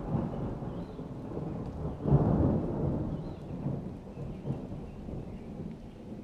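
A peal of thunder rumbles in suddenly and cracks loudest about two seconds in. It then rolls away slowly in a long, low, fading rumble.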